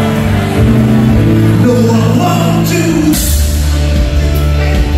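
Live rock band playing with a singer over held chords. About three seconds in, the drums come in with cymbal crashes and a heavy bass.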